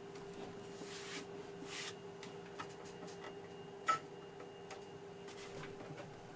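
A steady low hum from the running vintage computer setup, with faint irregular ticks and clicks and one sharper click about four seconds in.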